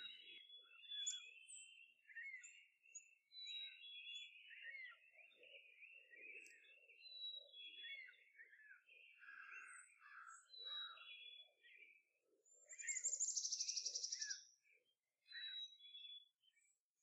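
Birds chirping and singing in many short, quick notes, with a louder rapid buzzy trill about thirteen seconds in.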